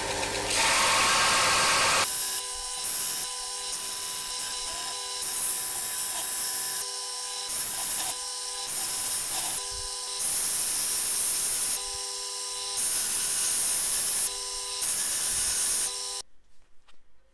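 Benchtop belt grinder running with a steady motor hum while the steel face of a rusty hammer head is pressed against the sanding belt, the grinding swelling and easing every second or two with each pass. The sound stops abruptly near the end.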